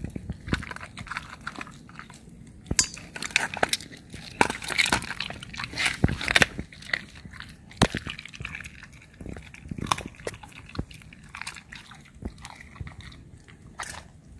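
German Shepherd chewing a piece of raw chicken, with irregular wet crunches and clicks of its teeth, busiest a few seconds in.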